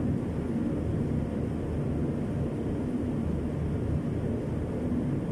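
Steady low background rumble with a faint hum, no single knock or click standing out.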